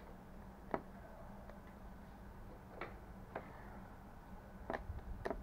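A handful of short, sharp clicks at irregular intervals as wiring connectors are plugged in and switches are worked on an electric scooter's handlebar. No steady buzzer tone is heard.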